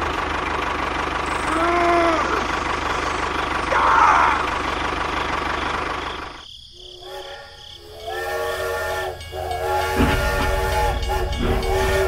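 A steady engine-like running noise. Then, after a brief drop about six and a half seconds in, a steam locomotive whistle sounds several chord-like blasts in a row, with a low rumble beneath the later ones.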